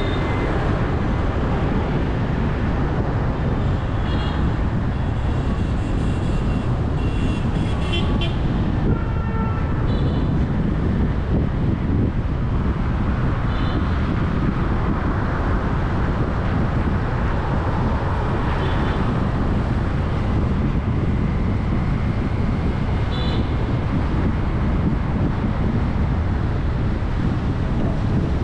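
Busy road traffic, mostly motorbikes, as a steady low rumble, with short horn beeps now and then, several of them close together about a quarter of the way in.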